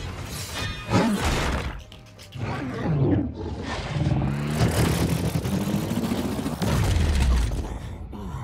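Action-film fight soundtrack: dramatic music under deep roars and growls from battling giant robot beasts, with a sharp hit about a second in.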